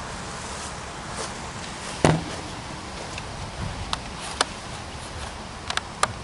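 A single sharp knock about two seconds in, then a few light clicks and taps, over a steady background hiss.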